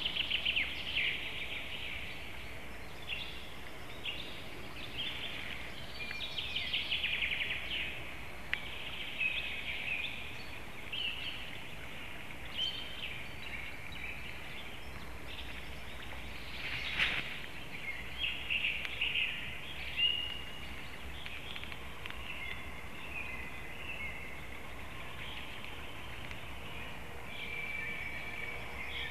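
Small forest songbirds singing, many overlapping chirps and trills, over a steady low background hiss. One sharp knock sounds about halfway through.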